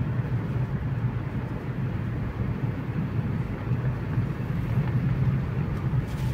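Car driving at a steady speed, heard from inside the cabin: a steady low engine and road rumble.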